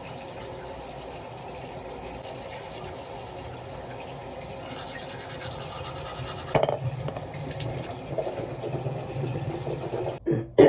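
Bathroom tap running into the sink during toothbrushing, a steady hiss that shuts off sharply about two-thirds of the way through. Quieter toothbrush scrubbing follows, with one short loud sound at the very end.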